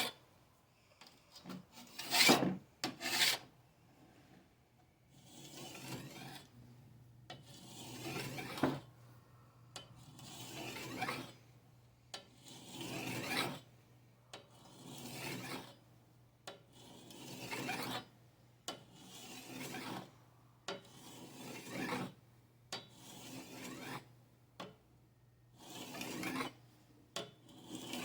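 Knife blade scraped along a sharpener in about a dozen slow, long strokes, roughly one every two seconds, with two shorter, louder scrapes early in the run.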